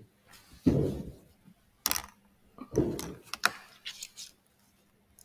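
A few scattered dull thumps and sharp clicks over a faint steady hum, typical of someone handling things near the microphone.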